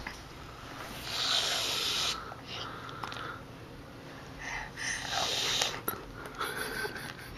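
Aerosol can of whipped cream spraying: two short hisses of about a second each as the nozzle is pressed.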